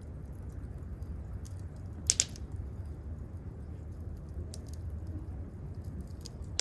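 Campfire wood crackling: scattered small pops over a low steady rumble, with one sharper double pop about two seconds in.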